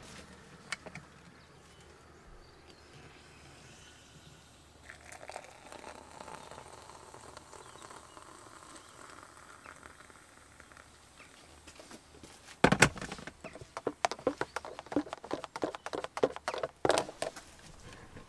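Hot water poured from a kettle into a mug, a soft running hiss, then near the end a sharp knock and a quick run of clinks lasting a few seconds as a spoon stirs the coffee in the mug.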